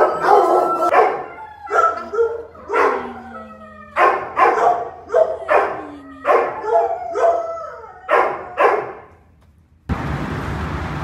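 Dogs in shelter kennels barking, about a dozen loud barks in a series, a few drawn out into falling whines or howls. The barking stops about nine seconds in, and a steady outdoor hiss of traffic follows near the end.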